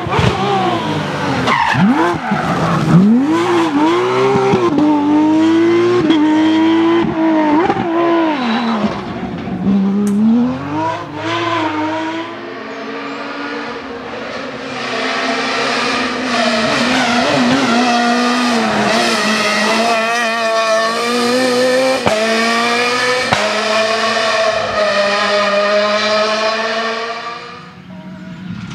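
Rally car engines at full throttle on a tarmac stage, two cars in turn: the revs climb and drop sharply with each quick gear change as the first car approaches, then a second car's engine note climbs through long pulls before fading near the end.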